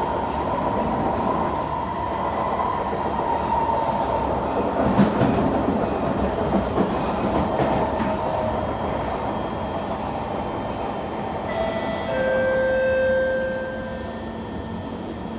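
Kawasaki C151 metro train running on rails, heard from inside the car: a steady rumble of wheels and running gear, with a faint steady whine at first. Near the end a few high steady whining tones sound for a couple of seconds.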